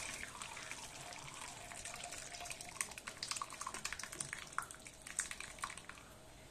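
Split milk poured from a steel pot into a steel mesh strainer: the whey runs and drips through the sieve while the wet curds (chhena) slide in with a run of small splats in the middle seconds, fading toward the end. This is the straining of milk curdled with vinegar to separate the chhena from the whey.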